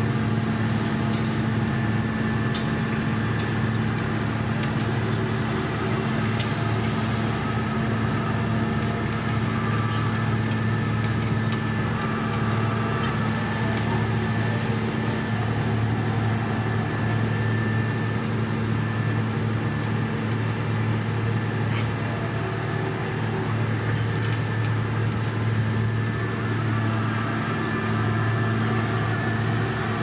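Heavy diesel engines of a SANY paver and a 25-ton dump truck running steadily at work, a constant low drone with a few light clicks as the truck tips crushed-stone base course into the paver's hopper.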